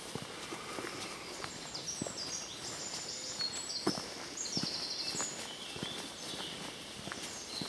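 Footsteps on a dirt woodland path, with a songbird singing high runs of rapid notes that jump from pitch to pitch.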